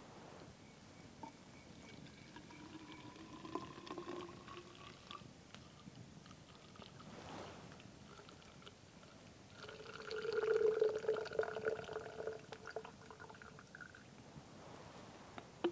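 Water poured from a small cooking pot into a drink bottle: first a faint thin trickle whose tone rises slightly as the bottle fills, then, about ten seconds in, a louder pour lasting about four seconds.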